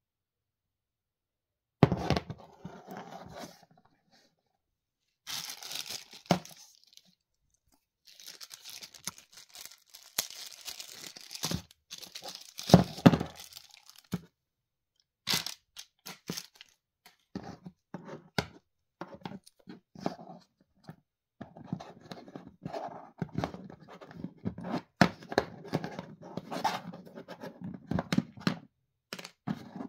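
Plastic packaging being unpacked by hand: crinkling and tearing in irregular bursts, mixed with sharp clicks and knocks of items handled on cardboard. It starts about two seconds in.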